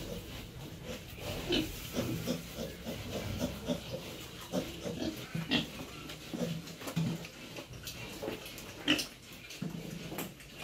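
Pigs grunting repeatedly in a pen, with about three short, sharper, louder sounds.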